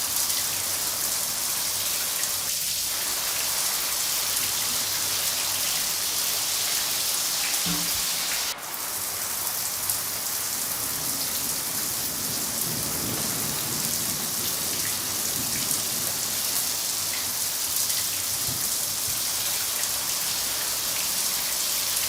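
Steady rain falling and pattering on a surface, an even hiss throughout, with a low rumble of distant thunder building and fading about halfway through.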